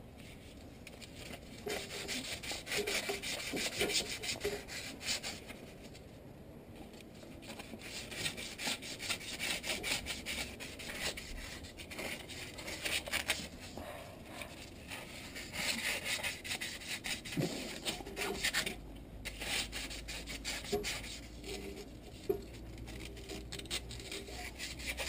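Rapid back-and-forth hand scrubbing of bare metal with an abrasive, cleaning the seat of the oil pump drive gear on the engine before the new gear goes on. The scraping comes in runs of quick strokes with short pauses, about six seconds in and again near nineteen seconds.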